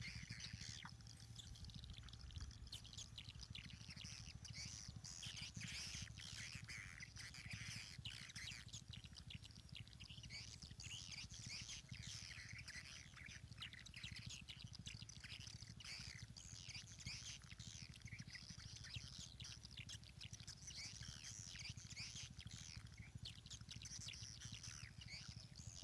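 Faint birdsong: many small birds chirping and calling on and off, over a steady low rumble of outdoor background noise.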